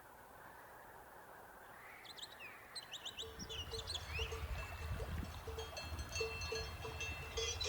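Birds chirping in quick high calls, beginning about two seconds in, over a faint hiss. From about three seconds in a low steady drone and a short mid-pitched note repeating two to three times a second join them.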